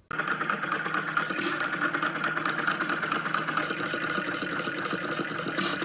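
Vintage hit-and-miss stationary engine running with a steady, rapid mechanical clatter that cuts in suddenly at the start.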